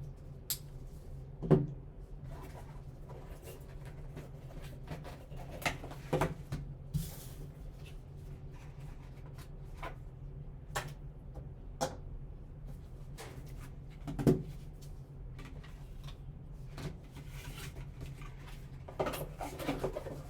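Hands handling trading-card packaging: scattered taps, clicks and rustles, the sharpest knocks about a second and a half in and near the middle, and a busier patch of handling near the end, over a steady low hum.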